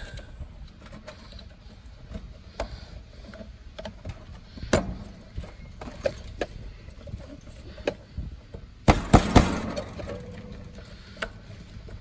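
Plastic cover being pressed back onto an air-conditioner condenser's contactor by hand: scattered clicks and taps, with a louder cluster of clicks about nine seconds in.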